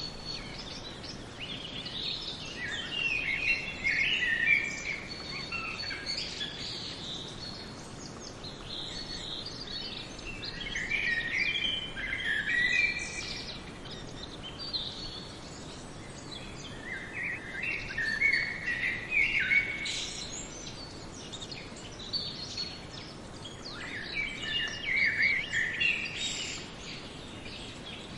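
Songbirds singing: phrases of high chirps and trills about every six or seven seconds, over a steady background hiss.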